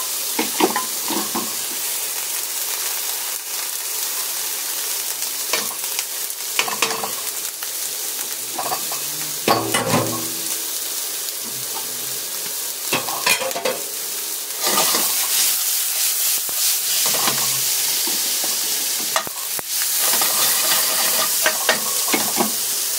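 Sliced fresh shiitake mushrooms and onion sizzling steadily in a frying pan on high heat, with frequent short scrapes and knocks as the pan is tossed and stirred with a wooden spatula; one heavier knock about ten seconds in.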